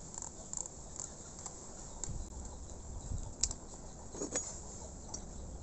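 Scissors cutting a wire-reinforced compressor gasket sheet: scattered light clicks and snips, the sharpest about three and a half seconds in and another just after four.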